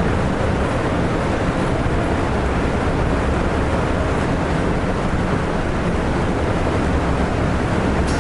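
Kegon Falls, a 97-metre waterfall, rushing in a loud, steady, unbroken roar of falling water.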